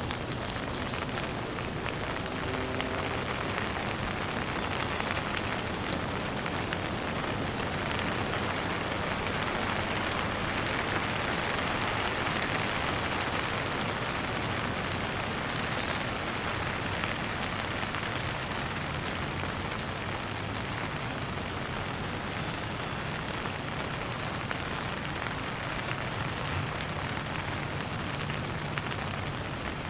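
Steady rain falling on a surface, a dense even hiss with many individual drop ticks, swelling slightly in the middle and easing a little toward the end.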